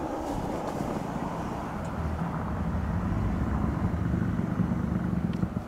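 2022 Ford F-150 Lightning electric pickup driving past on a snow-covered road: a low rumble of tyres on snow with no engine note, growing louder as it passes.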